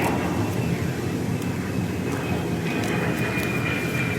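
A vacuum cleaner's motor running steadily, with a thin high whine that grows stronger from about two and a half seconds in and a few light clicks.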